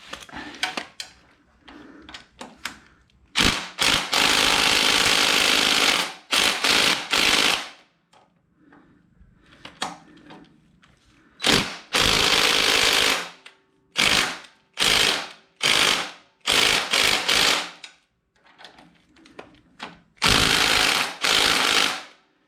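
Impact driver hammering in repeated bursts of about half a second to two seconds, on a stuck fastener that resists coming loose.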